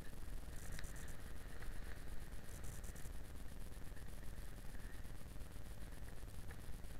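Yamaha XJ6 Diversion motorcycle's 600 cc inline-four running with a low, steady rumble at slow riding speed, picked up by a camera mounted on the bike.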